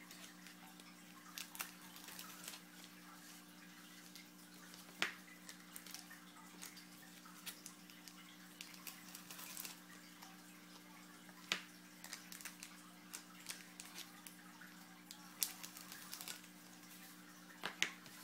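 Faint handling of trading-card packs and cards: scattered light rustles and clicks with three sharper ticks, over a steady low electrical hum.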